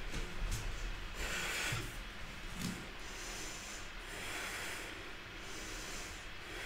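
A person breathing slowly and audibly, about two long breaths a few seconds apart. A few soft thuds come in the first few seconds as a bare foot steps forward onto a yoga mat.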